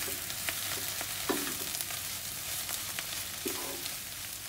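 Chicken, spinach and mushroom filling sizzling in a non-stick frying pan as it is stirred with a wooden spatula, cooking through with a spoonful of flour. A steady hiss, with a few short scrapes and knocks of the spatula against the pan.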